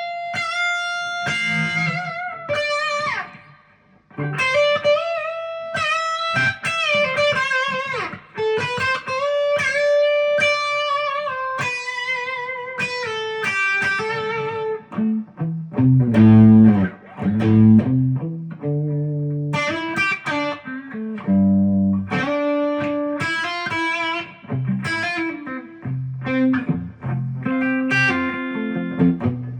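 Epiphone Les Paul Custom electric guitar played as a sound sample: a melodic single-note line with long held, vibrato notes, moving to lower, more clipped notes in the second half.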